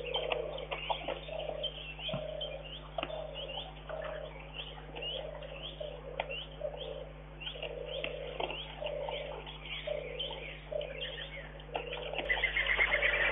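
Wild birds calling: low cooing notes repeated about once a second, with quick high chirps from songbirds that grow louder near the end, over a steady low hum.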